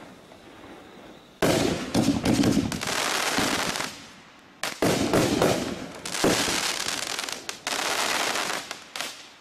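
TNT Fireworks "America's Best" 500-gram aerial cake firing in three volleys: about a second and a half in, near five seconds and near eight seconds. Each volley opens with a sudden bang and runs on for about two seconds as a dense run of pops and bangs.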